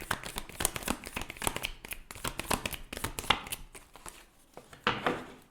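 A deck of tarot cards being shuffled by hand: a quick run of soft card flicks and slides that eases off about four seconds in, with one louder brush of cards near the end.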